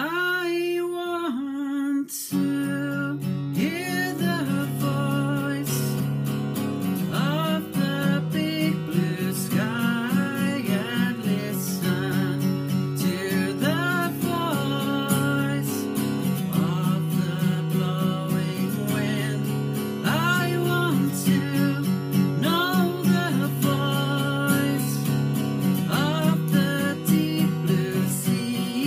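A man singing while strumming an acoustic guitar. The voice starts a sung phrase on its own, and the strummed chords come in about two seconds in and carry on under the melody.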